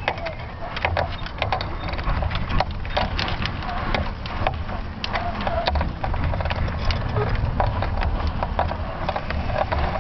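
Wind buffeting the microphone of a camera hanging beneath a rising high-altitude balloon payload: a steady low rumble with many irregular clicks and crackles.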